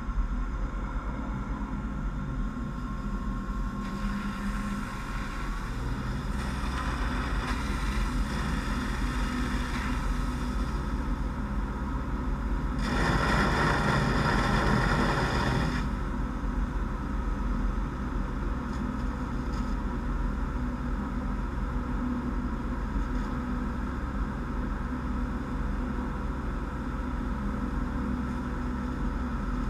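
Fire engine's engine and pump running steadily to supply the deck gun, its note growing heavier about six seconds in as the stream is brought up. A loud rush of water noise comes for about three seconds halfway through.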